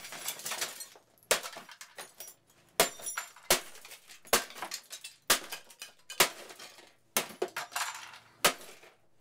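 A vintage Black & Decker CDX4 coffee cassette machine being smashed: about eight sharp blows on its plastic housing, roughly a second apart, each followed by broken plastic and glass pieces clinking and scattering.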